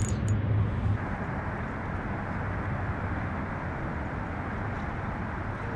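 Steady outdoor background noise: an even low hiss with no distinct splashes or clicks.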